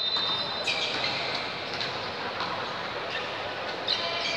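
Volleyball rally in a reverberant indoor sports hall: a few faint ball hits, under a steady murmur from the players and spectators.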